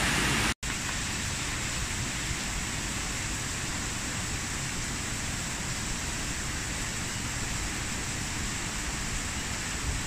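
Steady rush of falling water from a mountain stream's cascades, an even hiss with no breaks except a brief cut-out about half a second in.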